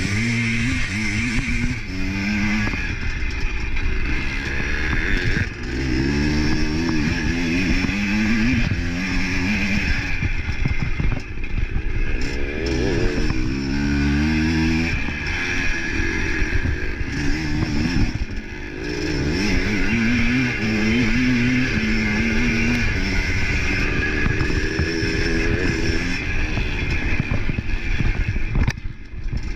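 Racing motorcycles on a motocross track, their engines revving up and falling back again and again as the riders work the throttle, with more than one bike heard at once.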